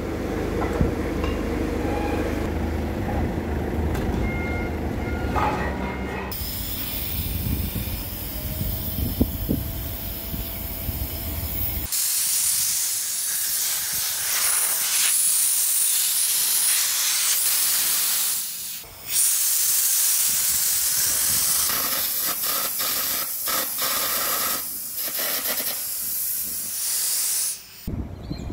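Air carbon arc gouging on steel: a loud, steady hiss of the compressed-air jet and arc blowing out molten metal, gouging out a crack and old weld on the excavator tilt bracket. The hiss breaks off briefly about two-thirds of the way through, and the first stretch is a lower, rougher noise.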